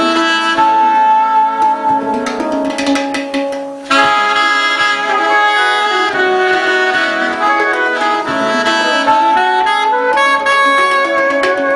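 Alto saxophone playing sustained melody lines over a handpan (AnnaZiska Asachan) struck with the hands. The music dips briefly just before four seconds in, then the saxophone comes back in strongly.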